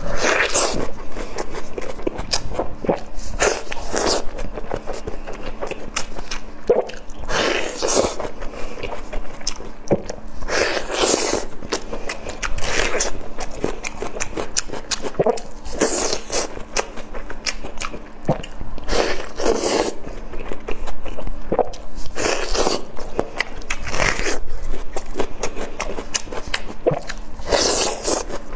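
Bites and chewing of a sauce-glazed ring sausage, with sharp bite and mouth sounds every one to three seconds.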